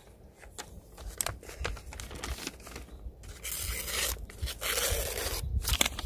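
A sheet of paper being handled, snipped and torn: several sharp clicks and snips, then two longer stretches of tearing and rustling about halfway through.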